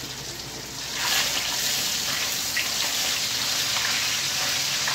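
Fish frying in hot oil in a wok: a steady sizzle that gets louder about a second in, as fried pieces are lifted with metal tongs.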